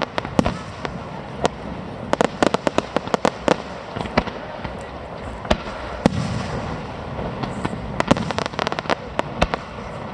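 Aerial fireworks going off: rapid clusters of sharp crackling bangs, irregular and overlapping, over the steady rumble of the display.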